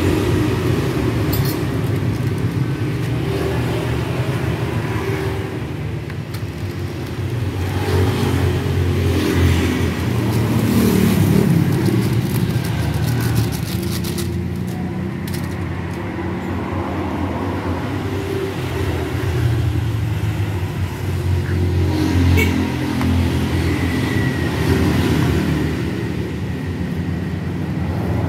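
Low drone of a vehicle engine running, swelling and easing in strength, with a brief crinkling of a plastic powder sachet around the middle.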